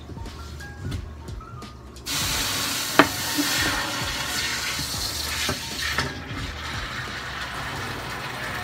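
A garden hose's brass spray nozzle is switched on about two seconds in, and water hisses and splashes steadily into an empty glass aquarium over rocks and gravel as the tank is filled. There is a sharp click about a second after it starts.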